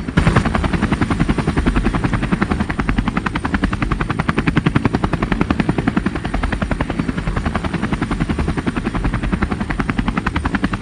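Helicopter rotor blades chopping in a rapid, steady beat.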